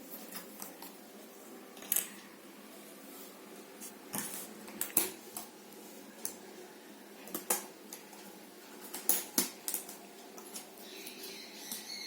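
Jigsaw puzzle pieces being handled and set down on a hard surface: a scattered series of sharp clicks and taps.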